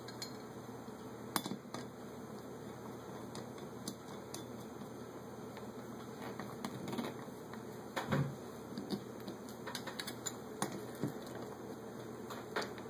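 Scattered clicks and knocks of a hand screwdriver driving screws into a Holley 600 carburetor, with metal parts clinking as the carburetor is handled. The two loudest knocks come about a second and a half in and about eight seconds in.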